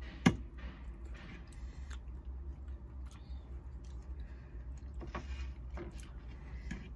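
Metal forks and a spoon clinking and scraping in a metal saucepan, with one sharp clink just after the start, then lighter taps, and quiet chewing of noodles over a low steady hum.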